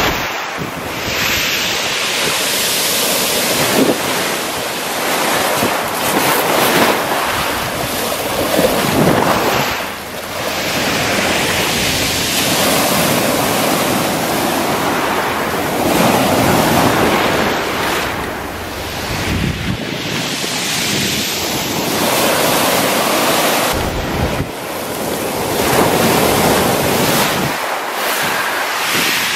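Black Sea surf breaking and washing up a fine-pebble beach, swelling and easing every few seconds, with wind buffeting the microphone.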